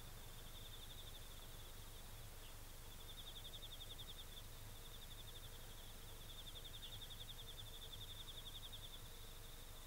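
A cricket trilling: a faint, fast-pulsed high trill that runs on almost continuously, with a few brief breaks.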